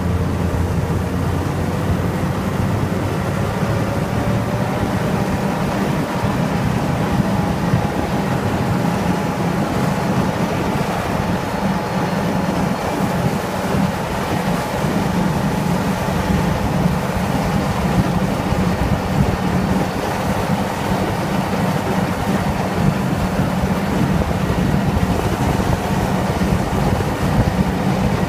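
A motor vehicle's engine running steadily while driving across frozen lake ice, with a low hum and a faint tone that creeps slightly higher in pitch. Wind rushes over the microphone.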